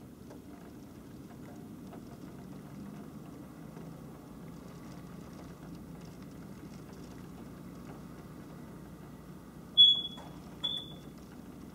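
Steady low hum, then two short high-pitched electronic beeps less than a second apart near the end.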